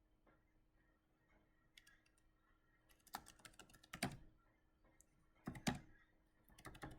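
Faint, scattered keystrokes on a computer keyboard: a few quick clicks at a time with pauses of a second or more between them.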